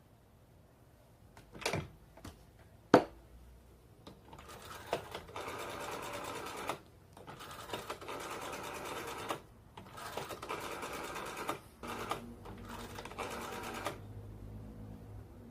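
Old-style telephone bell ringing for an incoming call: a fast rattling ring in four bursts of about two seconds each, with short breaks between them. Two sharp clicks come before the ringing.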